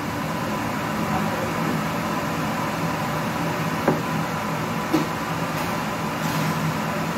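Steady mechanical hum, with two short knocks about four and five seconds in as a baking tray is pushed into the oven onto its rack.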